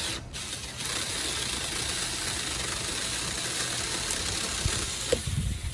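Battery-powered 4-inch mini chainsaw running and cutting a tree branch: a steady high-pitched whine that breaks off briefly just after the start, then runs on evenly until it stops near the end.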